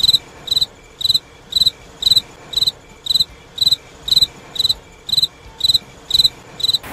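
Cricket chirping, a steady series of short high chirps about two a second. This is the stock "crickets" sound effect standing for an awkward silence.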